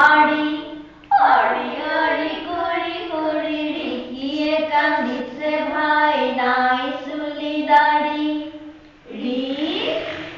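A young child's voice chanting a recitation to a sung melody, long held notes in phrases, with short breaks about a second in and again near the end.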